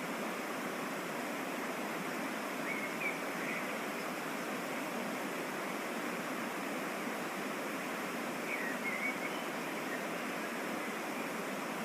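Steady rushing of a waterfall and mountain stream, with a few brief high chirps about three seconds in and again around nine seconds.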